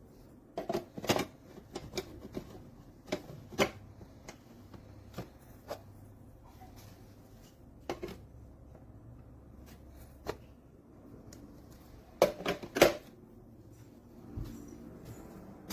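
Plastic parts of a cold-press juicer being handled and fitted together: irregular clicks and light knocks, with a quick run of louder knocks a few seconds before the end.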